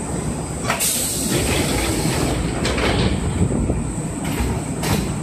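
Sliding passenger doors of a Kintetsu commuter car opening, with a sudden hiss about a second in and a few clunks after it, over the steady low hum of the standing train.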